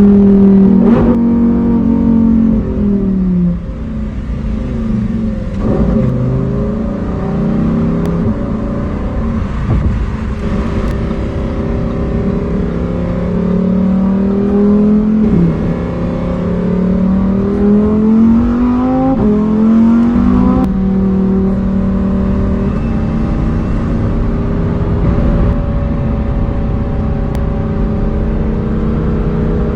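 Lamborghini Huracán STO's naturally aspirated 5.2-litre V10 engine and exhaust under way. The pitch falls at first, then climbs through the revs and drops sharply twice in the middle as it shifts up, then settles to a steady drone.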